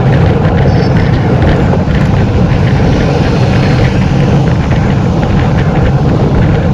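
Loud, steady wind rushing and buffeting over the microphone of a bicycle-mounted camera at about 44 km/h, a low rumble with road-bike tyre noise on asphalt under it.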